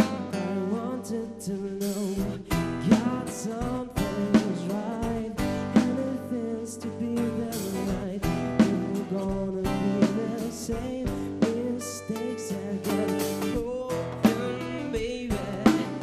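A live band playing a song with guitar and drum kit, with a sung melody over it.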